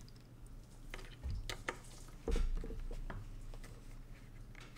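Light clicks and small knocks of a hand screwdriver backing small screws out of the device's housing, with two dull bumps, about a second in and a little past two seconds.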